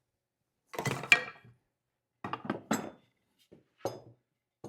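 Metal tools clinking and clattering in several separate bursts as they are picked up and set down, with a light metallic ring.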